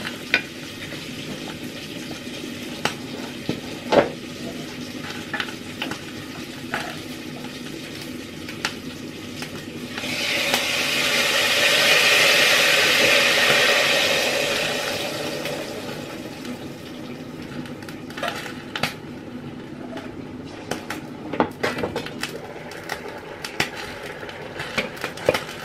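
Pork sizzling steadily in a pan, with scattered clinks and knocks of utensils and dishes. About ten seconds in, a rushing hiss swells up and fades away over some six seconds.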